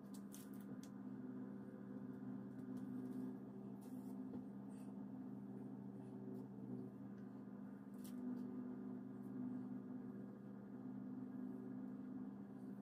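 A steady low hum made of several held tones, swelling gently now and then, with a few faint clicks.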